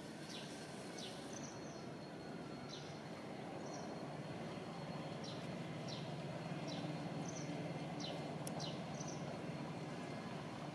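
Birds calling: short, high, falling chirps repeated about once a second, with a few shorter higher notes between them, over a steady low rumble that swells toward the middle.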